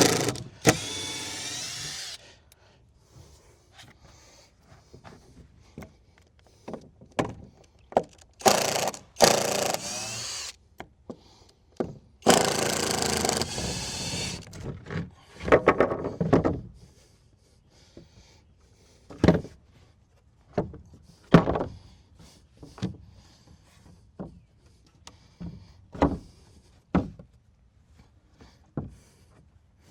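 Power drill running in three runs of about two seconds each, driving or backing out screws in wooden deck boards, with wooden knocks and thuds between and after the runs.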